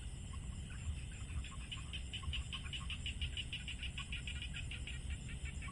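Rice-field frogs calling: a fast pulsing trill, about seven pulses a second, that builds about a second in and fades near the end, over a low rumble.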